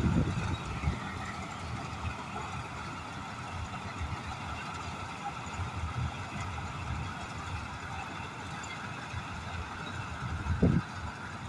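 John Deere 5075-based combine harvester running steadily while it cuts paddy, its engine and threshing machinery giving an even drone with a faint high whine. Two brief low bumps, one just after the start and one near the end.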